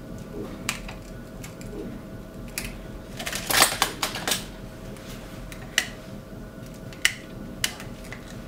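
Scattered sharp clicks and light clatter of a cracked phone glass panel and small tools being handled on the metal mould and bench of an LCD repair machine, with a quick flurry of clatter about three and a half seconds in and single clicks later on. A faint steady machine hum runs underneath.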